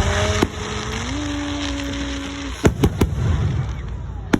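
Fireworks exploding: a bang at the start with crackling after it, then a quick cluster of sharp bangs past the middle and one more near the end. Under the first half runs a steady pitched tone that steps up in pitch about a second in.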